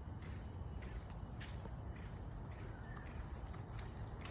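Steady, high-pitched chorus of forest insects, an unbroken shrill drone with a faint low rumble beneath.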